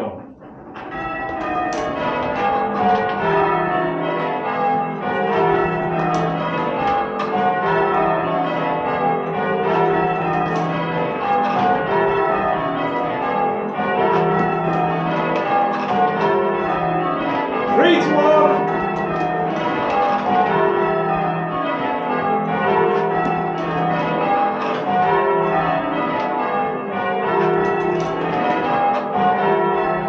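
Church tower bells rung full circle in change ringing, the bells striking one after another in repeating rows that step down in pitch from the highest bell to the lowest.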